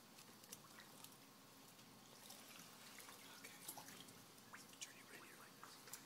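Near silence with faint drips and small splashes of water in a baptismal tank, as people shift in the water.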